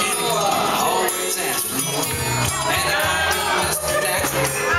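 Music with jingling percussion and a bass line that shifts between low notes.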